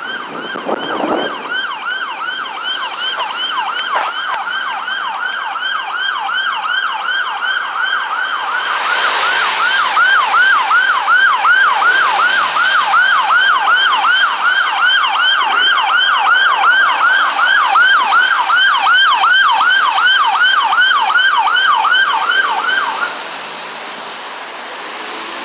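Emergency vehicle siren in a fast yelp, its pitch sweeping down about three times a second. It grows louder about a third of the way in as the vehicle approaches, then cuts off suddenly near the end.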